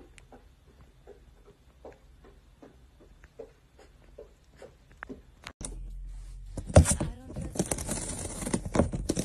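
A cat's footsteps tapping softly on a hardwood floor in an even, slow rhythm of about two or three steps a second. About five and a half seconds in, louder crunching and tearing of cardboard takes over as a cat bites into the rim of a cardboard box.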